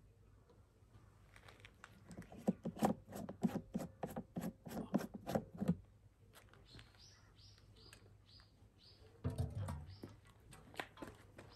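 Plastic fuel-filler cap on top of an EENOUR DK3000iSDF inverter generator being unscrewed, giving a quick run of clicks at about five a second. Near the end comes a dull handling knock.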